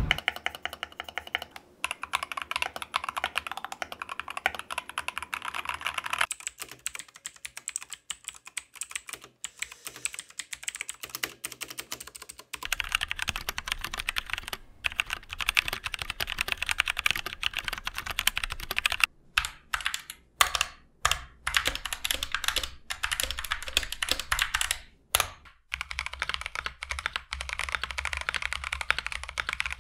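Typing on a run of budget mechanical keyboards, a few seconds each: among them the GK61 with optical switches, the Tecware Phantom 87, and the Akko 3068B with Cherry MX switches. Fast runs of clacking keystrokes change in character from one keyboard to the next, with a stretch of separate single key presses partway through.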